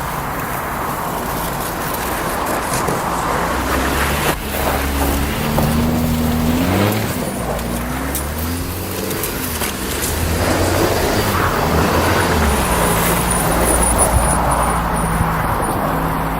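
Crash-damaged Mitsubishi Carisma's engine running, revved up and back down a few times in the middle, then settling to a steady idle.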